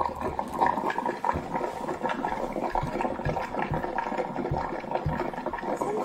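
Gurgling, splashing sound effect, like liquid pouring, with several soft low thumps scattered through it.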